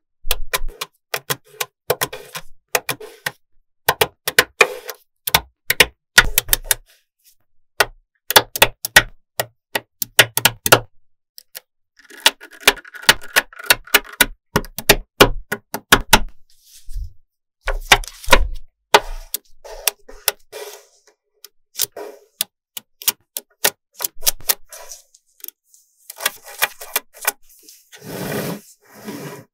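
Small neodymium magnetic balls clicking and snapping together as strips of them are set onto a build. The clicks come in quick clusters with short pauses between.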